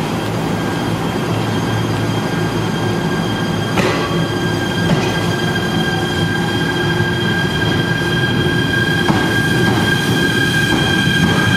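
JR East E129 series electric train pulling out of the station: a thump about four seconds in, then a steady high electric whine from its traction equipment that grows stronger as the train starts to move, over a low rumble.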